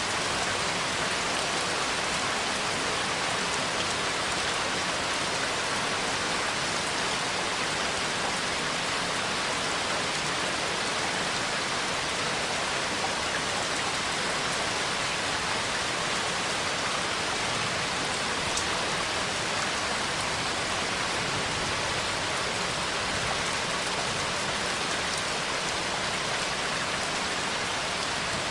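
Steady rain falling, an even hiss of rainfall that does not change.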